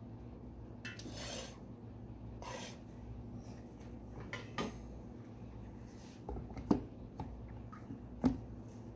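Kitchen handling sounds: light rubbing and clatter, then a few sharp knocks, the loudest two in the second half, as the lid is fitted onto a Vitamix blender jar packed with cherry tomatoes. A steady low hum runs underneath.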